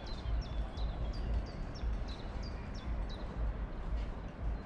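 Gusty low rumble of wind on the microphone, with a small songbird calling over it again and again: short high notes that each drop in pitch, about three a second.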